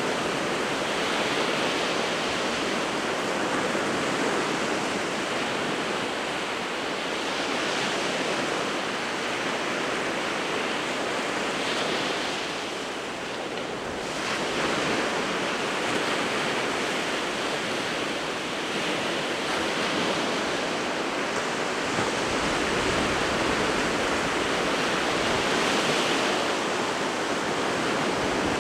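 Winter Sea of Japan surf breaking on the shore: a continuous wash of waves that swells and eases slowly, with a brief lull about halfway through.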